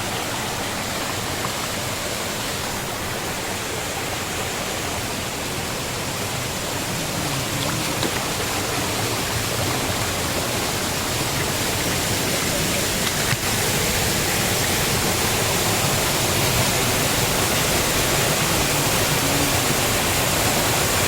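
Steady rush of water from a monsoon stream or waterfall, a little louder from about eight seconds in.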